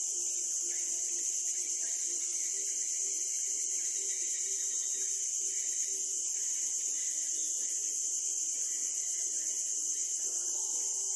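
Steady, shrill chorus of insects, an unbroken high-pitched drone.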